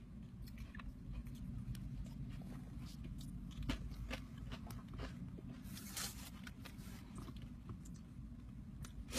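Takeout food being handled and eaten: a plastic fork clicking and scraping in a plastic bowl, with foil and paper wrapping crinkling and a louder rustle about six seconds in, over a low steady hum.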